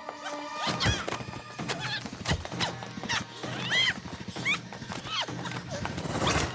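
Horse whinnying several times in short, high, sliding cries over music, with a few sharp knocks.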